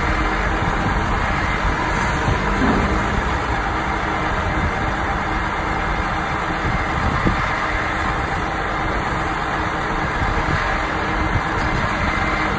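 Diesel engine of a Volvo 8x4 grab tipper running steadily while it drives the truck's hydraulic loading crane and grab.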